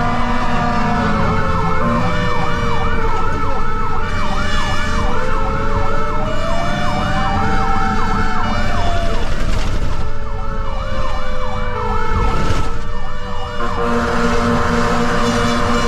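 Fire engine sirens sounding together: a slow rising-and-falling wail under a fast, repeating yelp, over loud engine and road rumble. A steady horn tone sounds at the start and comes back in the last two seconds, and there is one sharp knock about three-quarters of the way through.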